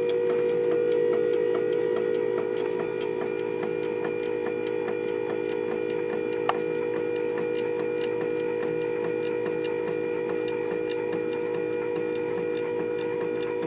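Stepper motor on a DIY CNC machine running, a steady whine with regular ticking a few times a second and one sharper click about six and a half seconds in. The builder considers the stepper a bit too small and weak for the machine.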